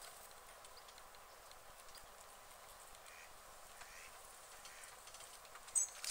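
White domestic ducks dabbling with their bills in shallow pond water: faint small wet clicks and splashes over a quiet background hiss, with a couple of soft quacks around the middle. Near the end a brief, sharp, high chirp is the loudest sound.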